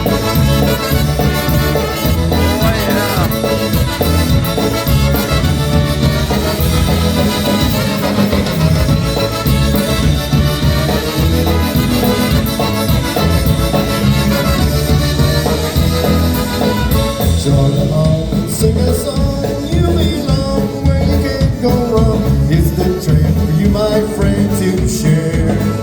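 Live polka band playing an up-tempo polka, kicking in abruptly with a steady, pulsing bass-and-drum beat under the melody instruments.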